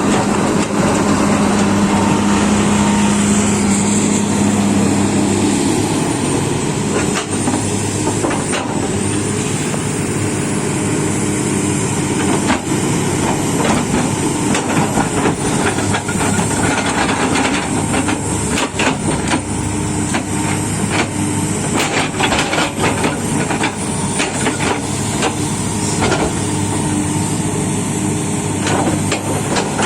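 Heavy diesel earthmoving equipment running steadily, with a strong engine tone for the first several seconds and repeated metallic knocks and clanks through the rest.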